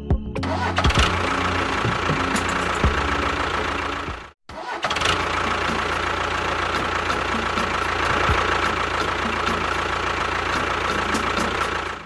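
A small motor running steadily with a constant whine. It cuts out completely for a moment about four seconds in, then runs on unchanged.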